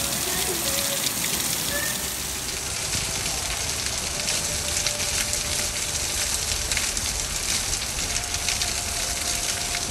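Heavy rain pouring down and splashing on deck boards, a dense, steady patter of drops.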